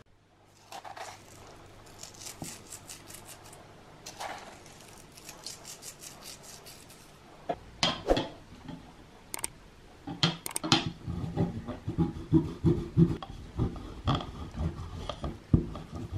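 Dry flour rustling as the last of it is shaken from a bowl, then a few sharp knocks as a metal rasp grater is set across a ceramic mixing bowl. From about ten seconds in, a block of Parmesan is rubbed back and forth on the fine rasp grater in quick rasping strokes, about three a second.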